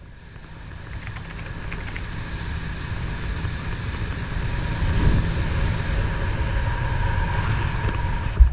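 A boat running under way: a steady motor whine over rushing water, with wind buffeting the microphone. It builds up over the first few seconds.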